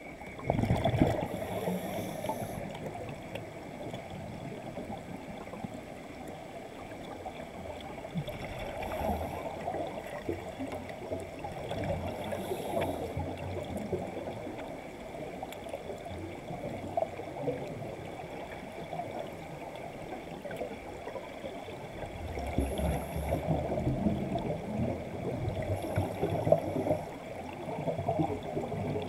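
Scuba divers' exhaled air bubbles rising underwater, a steady irregular bubbling and gurgling. Louder, deeper bubbling swells near the start and again for several seconds near the end.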